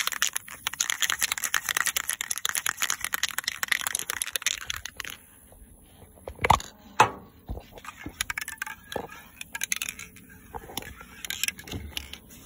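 Aerosol spray paint can spraying with a crackly hiss for about five seconds, then stopping; scattered clicks and knocks of handling follow, with two sharper knocks a little past the middle.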